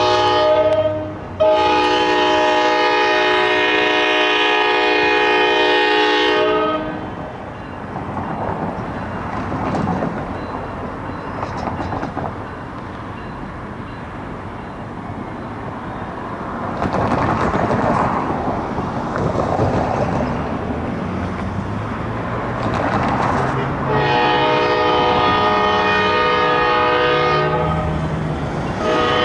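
Diesel locomotive air horn sounding a multi-note chord: a short blast, then a long blast of about five seconds. The horn stops and the rumble and clatter of the passing train run on for about seventeen seconds, then another long horn blast starts near the end.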